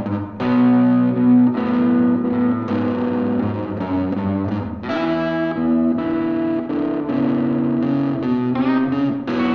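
Distorted electric guitars playing a slow blues in the key of B, with one guitar played with a slide. Sustained notes, with a slide gliding up in pitch near the end.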